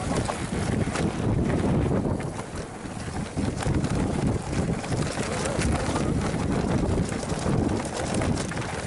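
A mountain bike riding fast down a rough trail: wind buffets the microphone over a low rumble from the tyres, with a constant scatter of small knocks and rattles from the bike.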